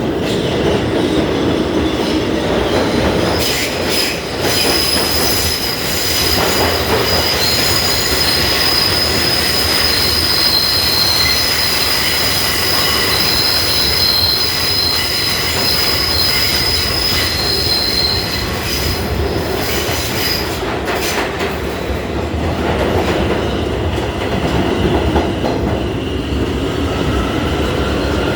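New York City subway F train running, its wheels squealing in a steady high pitch from about three seconds in until about twenty seconds, over the continuous rumble and rattle of the cars.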